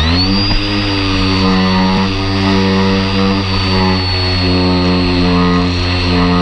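Model airplane's motor and propeller running steadily, heard from a camera mounted on the plane: a high, thin whine held over a low, even buzz.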